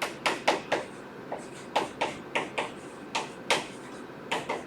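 An irregular run of short, sharp taps and scratches, about two to three a second, typical of writing strokes on a board.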